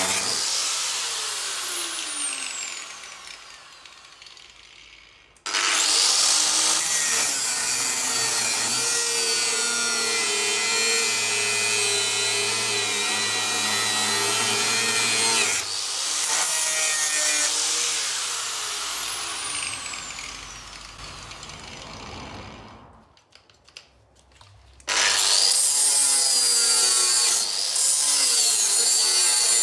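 Angle grinder cutting through the steel rear crossmember of a Land Rover Defender 110. Twice the disc is let off and winds down with a falling whine to a moment of quiet, then the grinder starts up again abruptly and goes back into the cut.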